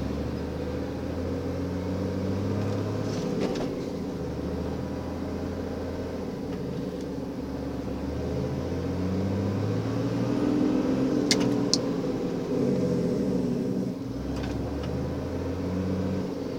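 Car engine running at low speed, heard from inside the cabin while creeping forward in stop-and-go traffic. Its pitch rises and falls gently a few times as the car pulls off and slows. Two sharp clicks come a little past the middle.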